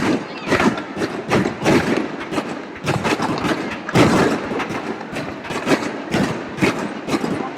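Aerial fireworks bursting in a rapid barrage, booms and cracks following one another two or three a second, each with a short echoing tail; the loudest burst comes about four seconds in.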